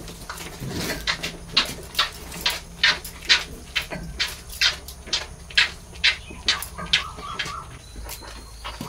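A calf suckling at a cow's udder: wet sucking slurps, about two a second, in a steady rhythm.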